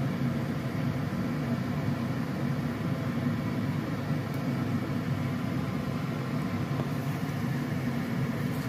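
Steady low rumble of a wok steamer on a lit stove, with water boiling under the plate of chicken.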